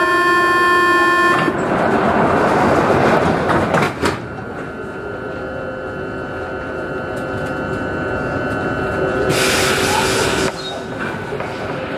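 Paris Métro MP05 automatic train in a tunnel: a steady multi-tone electrical whine cuts off about a second and a half in, giving way to rumbling train noise and a knock. A steadier whine follows, and a burst of hiss lasts about a second near the end.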